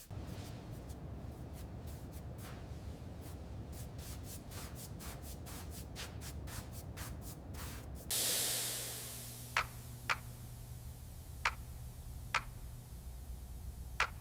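Light rubbing strokes over a low hum, then about eight seconds in a single burst of spray hisses and fades away over a second or two, followed by several sharp clicks.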